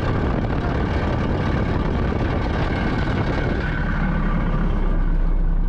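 Heavy truck driving on, its engine and a loud, dense road rumble running together, while it is being driven on a blown tire with chains dragging. About three and a half seconds in, the noise settles into a steadier, lower hum.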